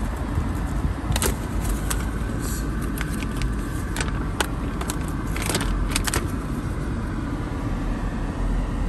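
Paper rustling and crinkling with short handling clicks as a folded window sticker is pulled out and opened, mostly in the first six seconds, over the steady low rumble of the idling car and its air conditioning inside the cabin.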